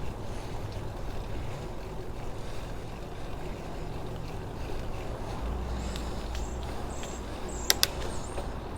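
Wind rumble on the microphone and tyre noise from a bicycle being ridden. In the second half, a run of short high chirps and two sharp clicks close together.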